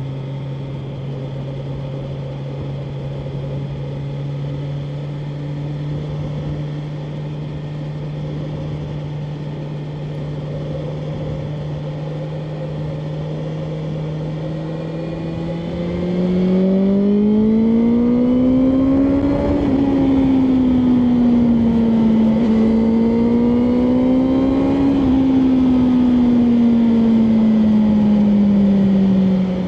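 BMW M1000R Competition's inline-four engine, running steadily at a light throttle while cruising. About two-thirds of the way in it gets louder and climbs in pitch under acceleration, eases briefly, climbs again, then falls away as the throttle closes near the end.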